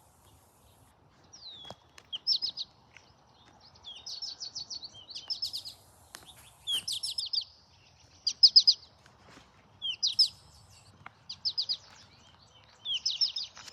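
Recorded American goldfinch calls played back loudly. Each phrase is a short slurred note followed by a quick run of three to five high notes, repeated every second or two.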